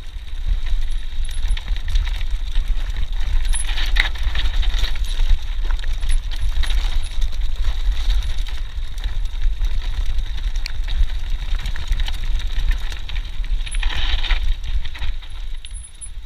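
Mountain bike rolling down a loose gravel track: wind buffeting the chest-mounted camera's microphone with a heavy low rumble, over tyres crunching on stones and the bike rattling. Two louder rough spells come about four seconds in and again near the end.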